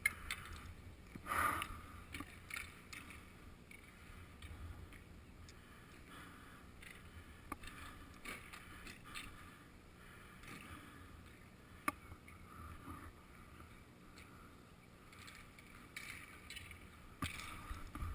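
Faint outdoor roller hockey rink ambience picked up by a goalie's helmet-mounted camera: a low rumbling haze with scattered sharp knocks of sticks and puck, the loudest about a second and a half in and another sharp one about twelve seconds in.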